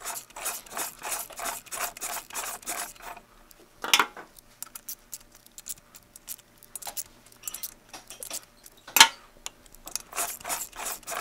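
Hand ratchet clicking rapidly for about three seconds while turning the pinion shaft bolt to rotate a Harley-Davidson twin cam engine over by hand, then two single sharp metal clacks of tool handling about four and nine seconds in.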